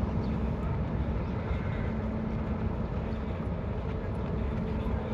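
Car ferry's engines running with a steady low rumble and a constant hum.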